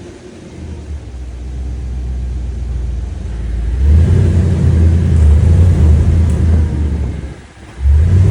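Audi R8 giving off a low droning rumble that swells up and holds loud for several seconds, dips briefly and comes back near the end. This is the noise the owner is concerned about.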